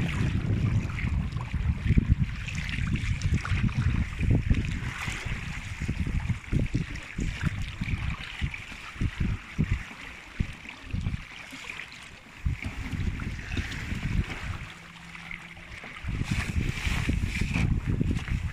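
Wind buffeting the microphone in gusts over water rushing and splashing along the hull of a sailing kayak running downwind; the wind noise eases for a moment about fifteen seconds in.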